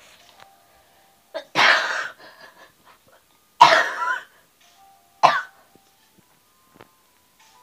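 A person coughing three times, loud and close, about two seconds apart.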